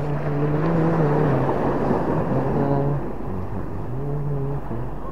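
An engine running, its hum shifting in pitch a few times, dropping away about three seconds in and coming back briefly near the end.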